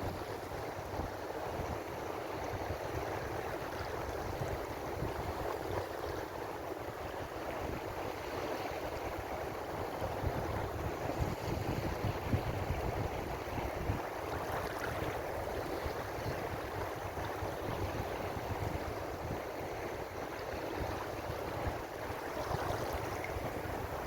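Ocean waves washing in a continuous, steady surf noise with a low rumble underneath, swelling slightly now and then with no distinct breaks between waves.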